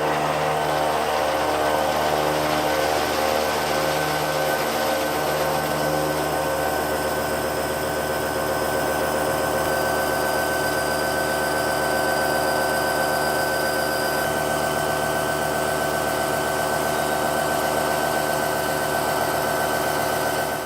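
Heavy metal-cutting lathe running and machining: a steady mechanical whine made of several held tones, a high one loudest, over a hiss of cutting, which cuts off suddenly at the end.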